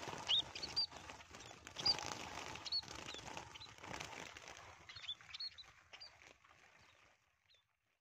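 Many small trapped birds chirping in short, high calls, with rustling in the wire cages; it all fades out near the end.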